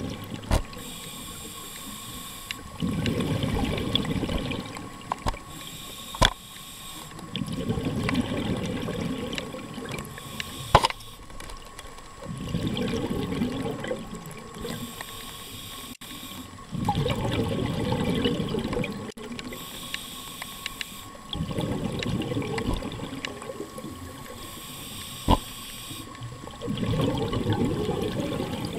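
Underwater scuba breathing: exhaled bubbles gush from the regulator in bursts of about two seconds, roughly every four to five seconds, with quieter inhalations between. A few sharp clicks and a faint steady whine come through as well.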